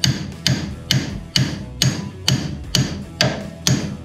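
Steady hammer blows on steel, about two a second, each with a short metallic ring: the upper ball joint of a 1964 Ford Falcon's front suspension being knocked loose from the spindle.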